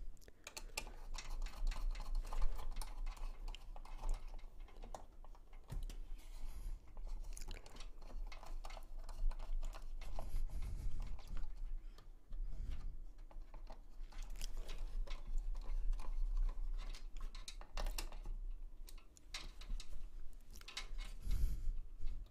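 Hands working the AIO pump block and its mounting hardware onto the CPU inside a PC case: an irregular run of small plastic and metal clicks, taps and scrapes, over a low steady hum.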